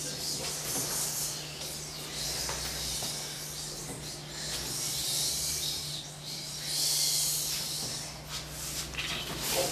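Several people whispering together in a huddle: hushed, hissy surges of whispered talk with no voiced words, over a low steady hum.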